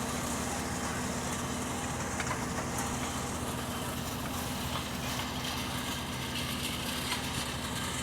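Farm tractor engine running steadily with an even, unchanging hum.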